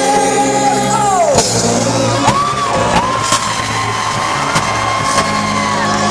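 Live rock-musical performance heard in a large arena: a singer holds long notes that slide down at their ends, over a band and orchestra with sharp drum hits.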